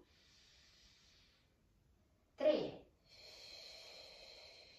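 A woman breathing audibly through the mouth during a resistance-band arm raise: a long soft breath, then a short spoken word about halfway through, then another long breath.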